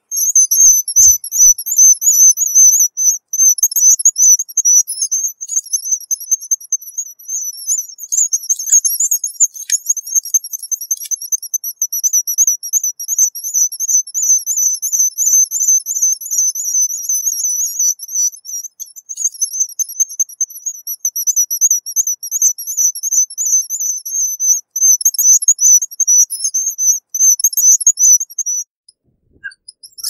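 Spectacled guillemot calling: a long run of high, thin, quavering whistled trills with brief breaks, stopping shortly before the end.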